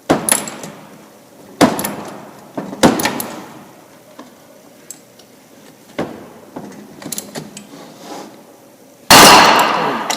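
Dead blow hammer striking the end of a three-jaw flywheel puller on an 87cc small engine: several sharp blows a second or more apart, with a run of light clicks between them. Near the end comes the loudest bang, with a ringing tail: the snap that typically means the flywheel has broken loose from the crankshaft.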